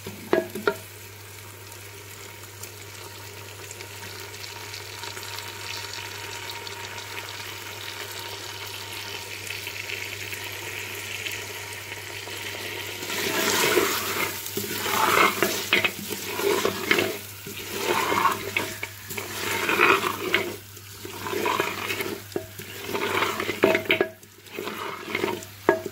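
Raw beef cubes sizzling in hot oil in a clay handi at the start of frying. The sizzle is steady and slowly grows for the first half, then comes in louder, uneven surges with stirring.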